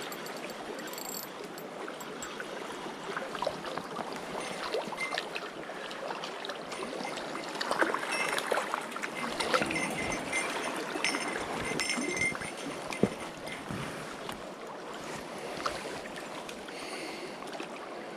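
A river stream flowing steadily, with louder irregular splashing and knocks in the middle stretch.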